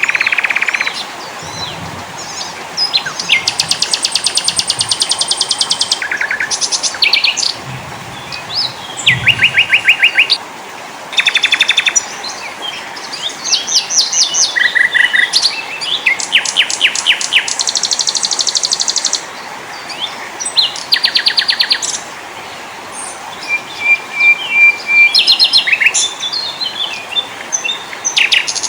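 Small forest songbirds singing one after another: rapid trills of evenly repeated notes and short chirps, high-pitched, over a steady background hiss.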